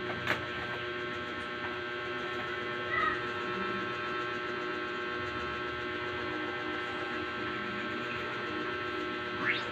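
Steady electrical hum made of several even tones. There is a click just after the start, a brief chirp about three seconds in, and a quick rising swish near the end.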